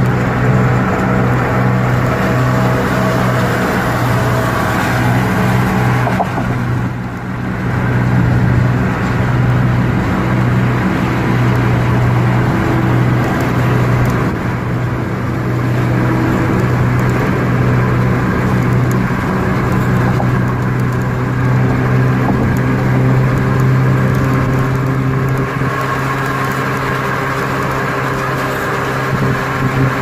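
Steady drone of a car driving at freeway speed, heard from inside the cabin: continuous engine and tyre noise with a low hum.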